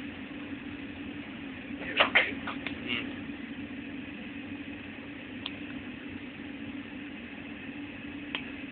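Steady low hum of a glass-melting furnace heating a row of crucibles, with a few short clicks about two to three seconds in.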